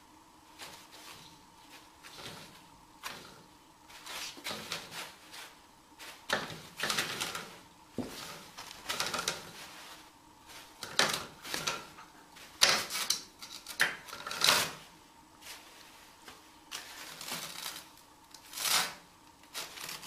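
Toilet paper rustling in irregular bursts as a kitten paws and pulls at the unrolled strip, the bursts getting busier and louder from a few seconds in. A faint steady hum runs underneath.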